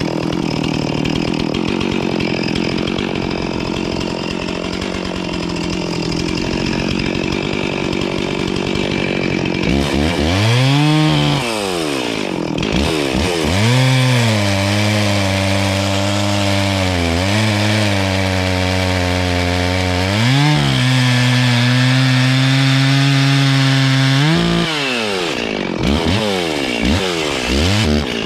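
Chainsaw cutting downed wood. Its engine holds a steady pitch for about the first ten seconds, then revs up and down again and again, with stretches held at a steady pitch between the revs.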